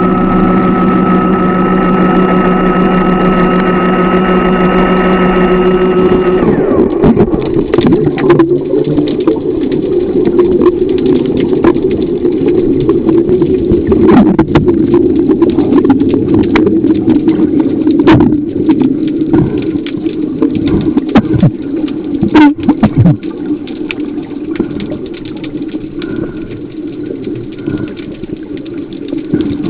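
Underwater dive scooter's electric motor running with a steady whine, cutting off about six seconds in. After that, scuba exhaust bubbles rushing and bubbling with many scattered clicks and knocks.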